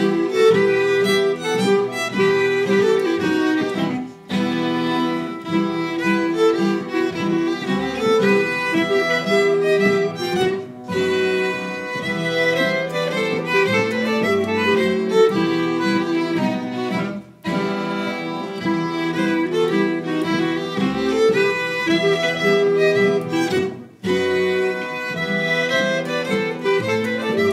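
A Finnish folk fiddlers' ensemble plays an instrumental tune on violin, accordion, clarinet, harmoniums, acoustic guitar and double bass. The music breaks briefly between phrases about every six to seven seconds.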